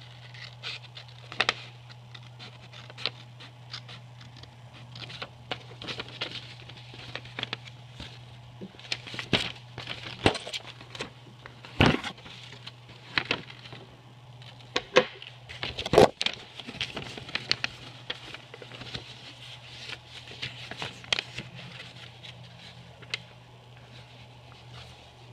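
Sheet of printer paper being handled: scissors snipping along the centre crease, then rustling and crinkling as the sheet is folded, with many small clicks and two louder snaps around the middle. A low steady hum runs underneath.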